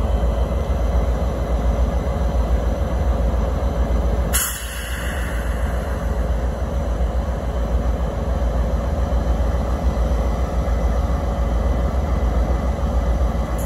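Pair of CSX GP40-2 diesel locomotives idling, their EMD 16-645 V16 engines giving a steady low rumble. A brief hiss comes about four seconds in.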